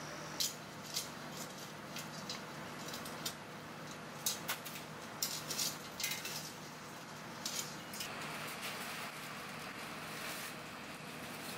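Irregular light clicks and taps, a few each second, over a steady low hum.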